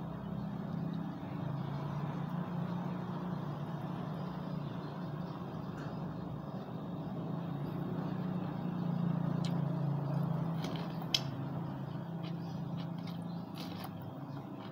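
Steady low rumble in the background, with a few sharp clicks and crunches of eating by hand from a plastic bowl. Near the end comes a crunch as a slice of cucumber is bitten.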